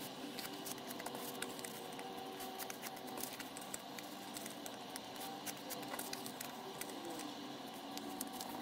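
Sheets of paper rustling and crackling as small folded strips of printer paper are handled and creased by hand, with many small crisp crackles throughout. A faint steady hum sits underneath.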